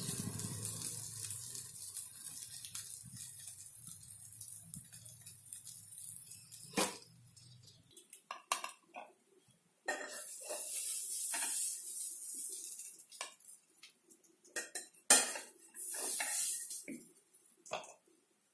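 Stuffed okra's sizzle in a steel kadai dying away over the first few seconds. Then a metal spatula scrapes and knocks against the pan and a ceramic plate as the okra is dished up: short scrapes and clinks at irregular intervals.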